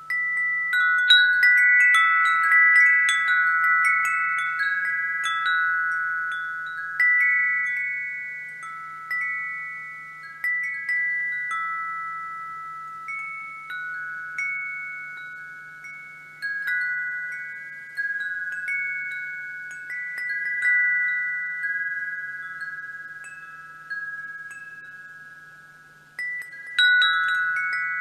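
Wind chime ringing: a few high pitched tones struck at irregular moments, each ringing on and overlapping the others as it fades. A flurry of strikes in the first few seconds thins out to occasional single notes and a long fade, then a new flurry starts about a second before the end.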